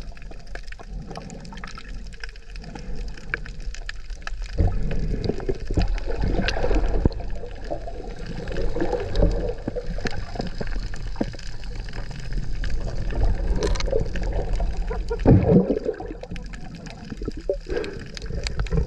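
Muffled underwater water noise from a camera held below the surface: low sloshing and gurgling that swells and ebbs irregularly, with a louder surge late on.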